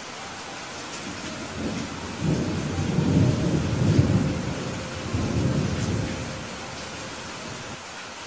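Steady rain with a low, rolling rumble of thunder that builds about two seconds in, swells loudest in the middle and dies away after about six seconds.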